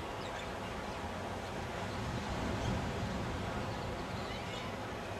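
Beach ambience: a steady, even rush of small surf and wind, with a few faint high bird chirps about a third of a second in and again near the end.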